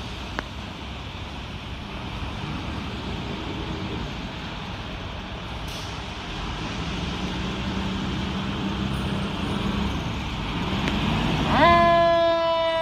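Fire engine's diesel engine running and growing louder as the truck pulls out. About a second before the end its siren comes on, sweeping up in pitch and then holding.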